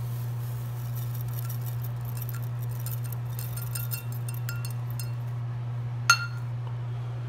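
Lye (sodium hydroxide) crystals poured from a metal measuring cup into a sink basin and drain, landing as a scatter of small ticks and clinks, then one sharper clink about six seconds in. A steady low hum runs underneath.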